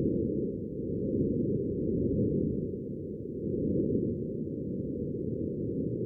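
Martian wind recorded by a microphone on NASA's Perseverance rover: a low, muffled rushing that rises and falls in gusts.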